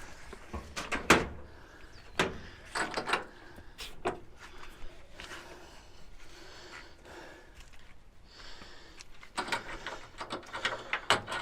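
Metal knocks and clunks of a trailer side gate being handled into place and its drop locks tried. There is a sharp knock about a second in, a few more over the next three seconds, and a quick run of small clicks and rattles near the end.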